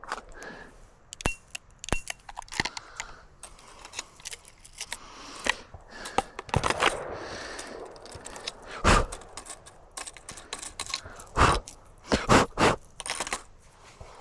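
Handling noise from a Smith & Wesson 627 revolver: scattered metallic clicks and scrapes, with a few sharper clacks about nine, eleven and a half and twelve and a half seconds in.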